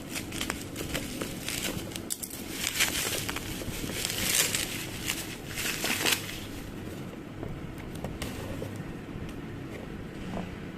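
Plastic packaging crinkling and rustling as a parcel is unwrapped, with scattered clicks and the loudest handling in the middle, over a low steady hum.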